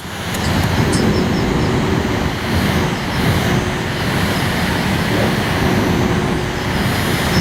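Small electric fan running steadily: a constant rush of air with a faint steady hum.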